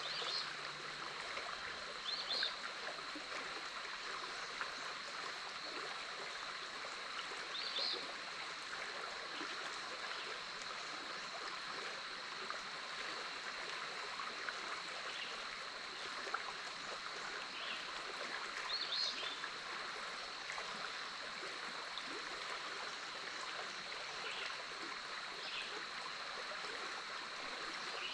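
Big Otter River flowing steadily past its sandy bank: a continuous rush of water. Over it runs a steady high-pitched hum, and a few short high chirps break in now and then.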